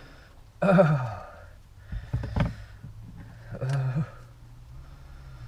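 A person sighing twice with a falling voice, with a few short knocks in between.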